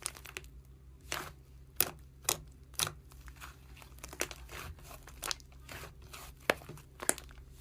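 Slime being squished and poked, giving irregular crackling and popping clicks.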